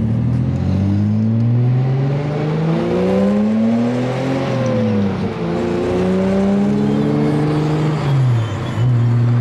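Datsun 280Z's 2.8-litre fuel-injected straight-six accelerating through the gears, heard from inside the cabin. The engine note rises steadily, drops at a gear change about five seconds in, climbs again, and drops once more just after eight seconds before settling to a steady cruise.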